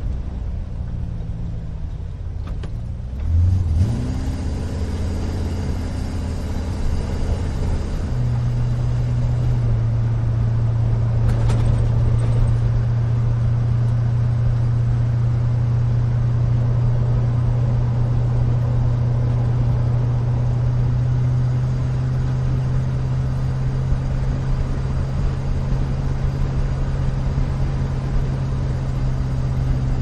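Engine and road noise of a 1970 Chevrolet 2500 pickup heard from inside the cab while driving. The engine picks up about three and a half seconds in, then settles into a steady low drone at cruising speed.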